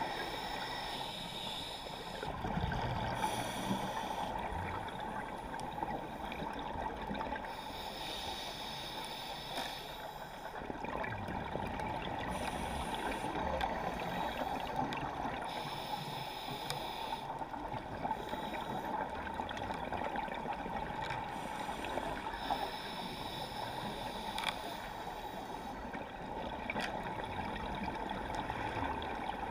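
Underwater sound on a scuba dive: a steady muffled wash of water with a scuba diver's regulator breathing and exhaled bubbles gurgling, coming and going every few seconds.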